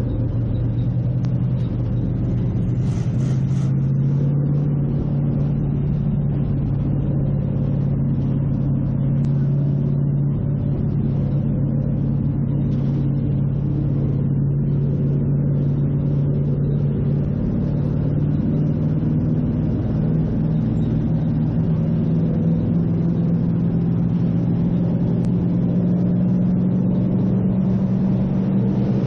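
Race car's engine running at low, steady speed, heard from inside its stripped, caged cockpit; its pitch creeps up near the end as the car picks up speed.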